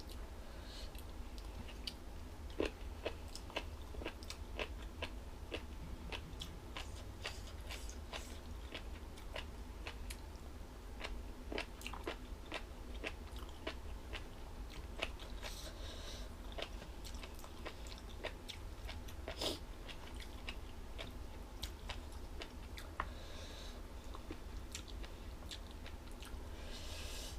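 A person chewing and biting jellyfish salad close to the microphone: irregular crisp crunches and clicks, several a second, over a steady low hum.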